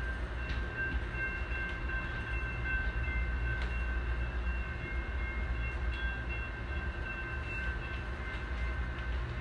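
Amtrak Pere Marquette passenger train heard from inside a coach, rolling at low speed with a steady low rumble. A faint, steady high whine runs over it, with a few light clicks.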